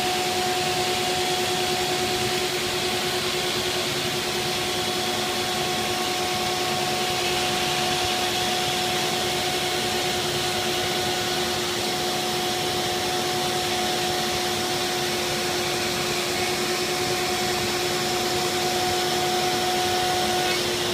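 A MultiCam 3000-series CNC router cutting vinyl-overlaid aluminium sheet: the spindle runs with a steady whine over the rush of the dust-collection suction. The sound stays even throughout.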